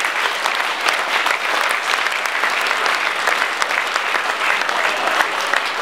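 A roomful of people applauding, dense clapping at a steady level.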